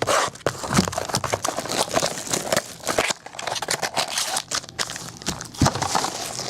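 Trading-card pack wrapper and cards being handled and opened: a busy run of crinkling, crackling and light clicking.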